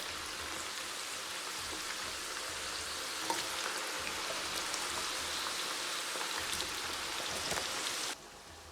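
Potatoes frying in hot vegetable oil: a steady sizzle with scattered crackles and pops. It cuts off abruptly near the end.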